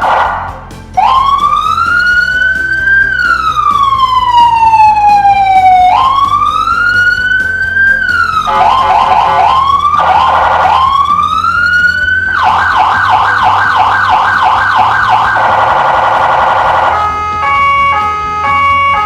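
Electronic vehicle siren, a Landun CJB100DA siren amplifier through a Landun YH110 speaker, cycling through its tones. It starts with a slow rising and falling wail, then switches to a fast yelp of about four sweeps a second and a still faster warble. Near the end it changes to a stepped two-tone hi-lo.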